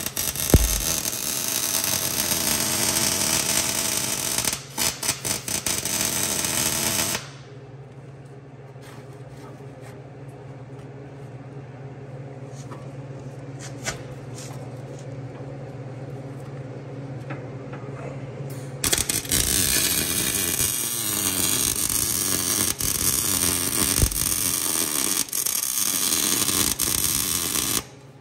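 Arc welding a trailer hitch to a truck frame: two long beads of steady crackling and hissing, the first stuttering briefly about four seconds in. They are separated by a pause of about ten seconds in which only a low steady hum remains. The weld is spattering, which the welder puts down to paint left in the holes burning through.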